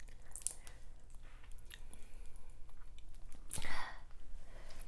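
Close-miked chewing and wet mouth sounds of eating boiled seafood: small clicks and crackles, with one louder wet burst about three and a half seconds in.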